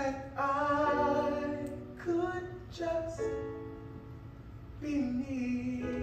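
A stage singer holding long, wavering sung notes over instrumental accompaniment, in a few phrases, the loudest in the first two seconds.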